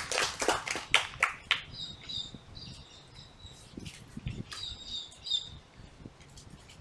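Scattered hand clapping dying away over the first second and a half, then a small bird chirping: quick, high, repeated chirps in two short spells.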